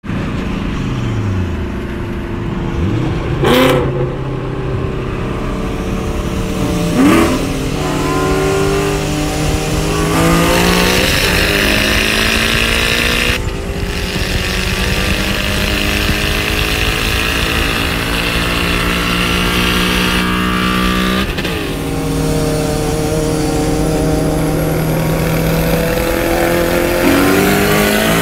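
Cars in a roll race accelerating hard, heard from inside one of them. The engine pitch climbs through each gear and breaks at several shifts, with a red Ford Mustang GT's V8 running alongside.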